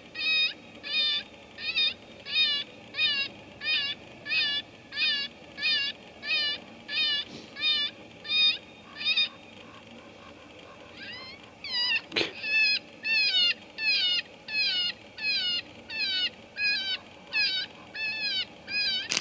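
Electronic predator caller playing a looped distress call: short, high-pitched squeals repeated evenly, about one and a half a second. The calls break off for a second or two midway, then start up again, with a single sharp click just after they resume.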